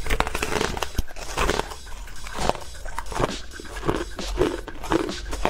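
Teeth biting and crunching through frozen, frost-covered purple ice cubes close to the microphone: a quick run of sharp, crisp crunches, several a second.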